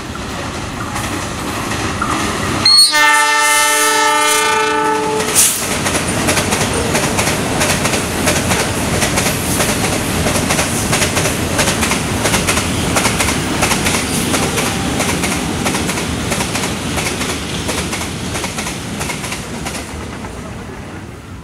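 A train horn sounds about three seconds in and holds a chord of several steady tones for nearly three seconds. Then a freight train's wagons pass close by with a steady rumble and rapid clickety-clack of wheels over rail joints, fading away near the end.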